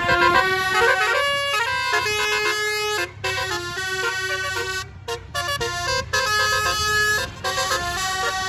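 A Basuri telolet bus horn playing a melody: a quick run of shifting multi-tone horn notes, broken by a few short pauses.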